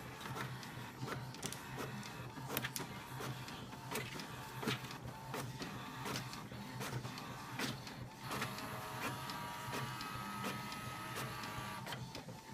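Home printer printing a page: irregular clicks and clacks of its mechanism over a low steady hum, with a higher steady whine joining in about eight seconds in as the printed page feeds out.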